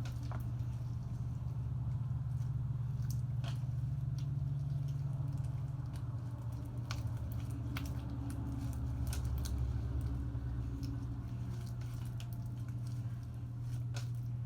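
Sticky borax slime being kneaded and squished by hand: wet squelches and small sharp clicks scattered over a steady low hum.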